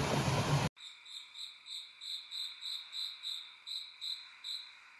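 A loud rushing noise cuts off abruptly under a second in. Then a high-pitched animal call repeats in short even pulses, about three a second, and stops near the end.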